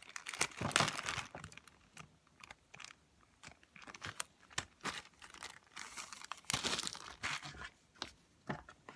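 Plastic bags and packaging crinkling as they are handled, in irregular bursts, with small clicks and knocks of objects against plastic.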